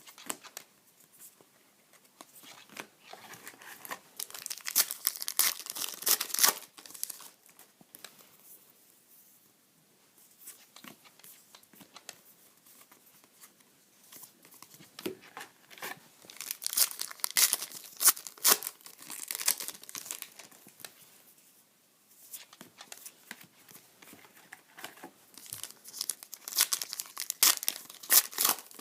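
Trading-card pack wrappers being torn open and crinkled, in three bouts of crackling, with quieter card handling between them.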